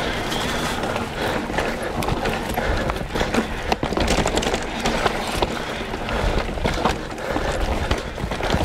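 Mountain bike riding fast down a dirt forest trail: tyres rolling over dirt and roots under a steady rush of noise, with frequent short knocks and rattles from the bike.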